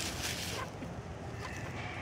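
Chickens scratching and pecking in dry leaf litter: a few short, dry rustles in the first second, with a faint thin high tone coming in near the end.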